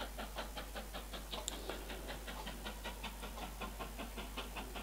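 Faint, even, rapid ticking, roughly six ticks a second, over a low steady hum.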